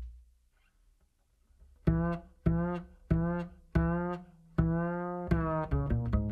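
Background music: after a quiet second or two, a slow line of plucked low string notes, one every half second or so, quickening near the end.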